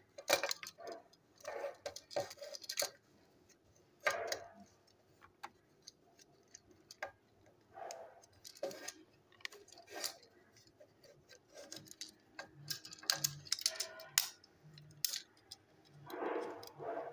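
Irregular light clicks and taps of a plastic Plarail toy train car being handled and turned over in the hands.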